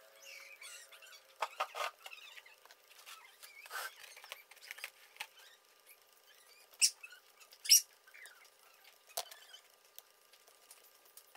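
Scattered small clicks and taps with faint scraping, irregularly spaced, with two sharper clicks just past the middle.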